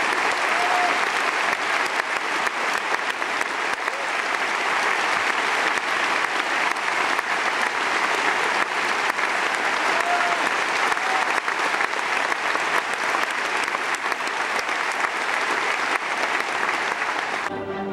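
Large theatre audience applauding steadily, with a few brief shouts rising above the clapping. Near the end the clapping fades as the orchestra starts playing again.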